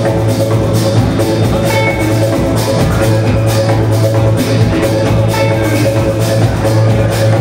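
Live band playing a steady groove, with electric bass and drum kit keeping a beat of about two strikes a second under sustained pitched instrument tones.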